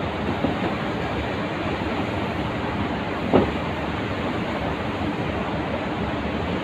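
Steady background noise of a large factory hall, with one short, sharp sound about three and a half seconds in.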